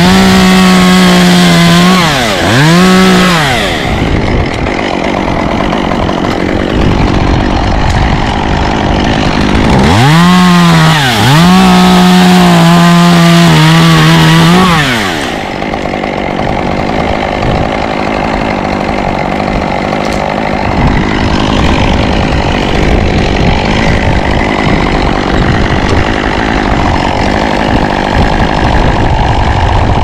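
Gas chainsaw run up to full throttle in two bursts, the first about four seconds long and the second around the middle, each dipping and recovering in pitch; in the second burst the pitch sags a little as it works through pine branch wood. Between and after the bursts there is a lower, rough rumble with wind noise.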